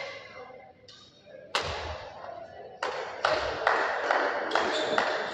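Badminton racket strikes on a shuttlecock in a rally: sharp cracks, each trailing off in hall echo, coming faster from about three seconds in, about two a second.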